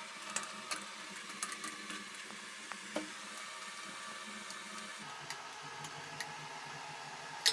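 Faint irregular ticks and small clicks as the exhaust fan's back cover is put back and screwed on, with a sharper click near the end, over a low steady hum.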